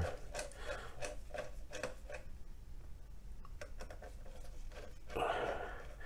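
Small Phillips screwdriver working the tiny screws of a motherboard's M.2 heatsink plate, with faint clicks and scraping of the tip in the screw heads. There is a louder rubbing about five seconds in.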